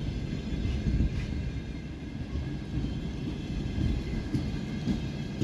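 Russian Railways passenger coaches rolling slowly past as the train pulls in: a low rumble of wheels on rail, broken by irregular knocks and clunks.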